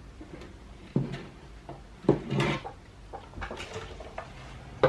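Knocks and clatter of skateboard truck bolts being pushed through the holes of a wooden deck by hand: a sharp knock about a second in, a longer rattle about two seconds in, and another knock near the end.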